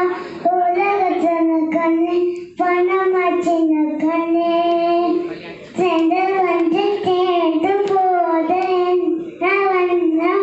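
A young girl singing unaccompanied into a handheld microphone, holding long notes in phrases broken by short breaths.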